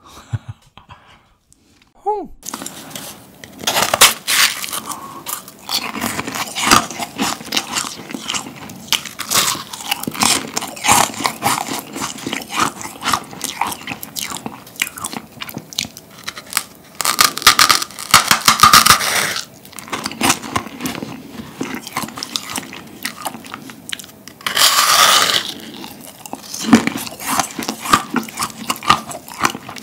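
Biting, crunching and chewing of a large meringue cookie, its dry shell crackling as it is gnawed. Starts after about two seconds of quiet, with louder crunching bursts about two-thirds of the way in and again near the end.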